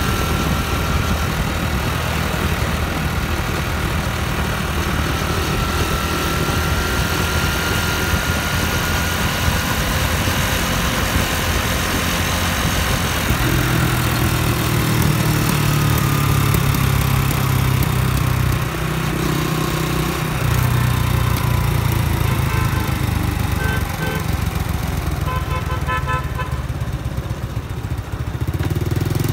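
Honda Dream motorcycle's small single-cylinder four-stroke engine running steadily on the move, with wind rushing over the microphone; the engine sound grows louder about halfway through. A run of short beeps near the end.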